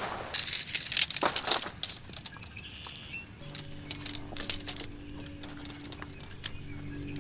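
Nylon tent fabric rustling and flapping as it is shaken out on the grass, then scattered sharp clicks as the shock-corded tent pole sections are snapped together.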